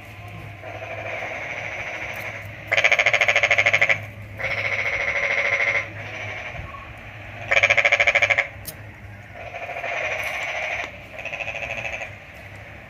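Electric arc between a carbon rod and copper wire, powered by a 12 V motorcycle battery, buzzing and crackling in about six irregular bursts of one to two seconds as the wire is touched to the rod and pulled away. The arc is being used to weld the wire.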